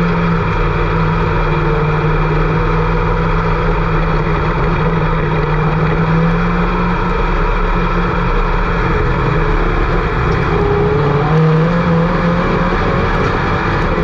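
IMCA Sport Mod race car engines running hard at a dirt track: a loud, continuous drone, with one engine note rising about ten seconds in.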